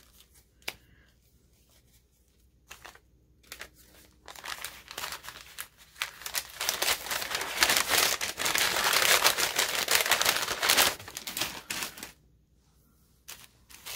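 Paper crinkling and rustling as paper packaging is handled. It starts after a single light tap, grows from about three seconds in, is loudest in the middle, and stops a couple of seconds before the end.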